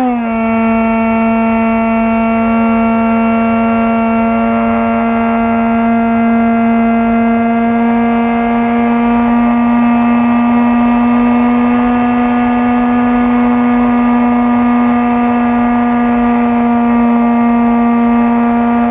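Electric motor and pusher propeller of a Bixler RC foam plane heard from onboard: a steady droning whine that drops in pitch right at the start as the throttle is eased back, then holds steady.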